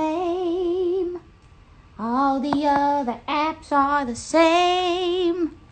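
A woman singing wordless held notes with a strong vibrato. She breaks off about a second in, then sings a few short phrases and holds a long wavering note near the end.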